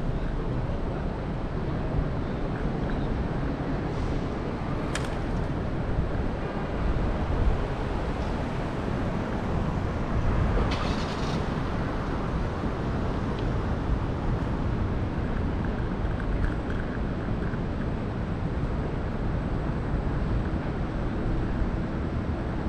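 Steady low rumble of wind and road noise from a scooter riding down a city street, with traffic in the background. A sharp click comes about five seconds in and a short hiss about ten seconds in.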